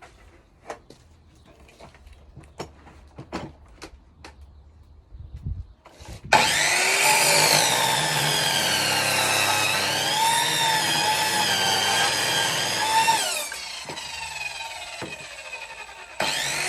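Evolution chop saw cutting a log. A few light knocks, then about six seconds in the saw starts and cuts for about seven seconds, its whine dipping and rising as the blade bites into the wood. It then winds down and starts again near the end.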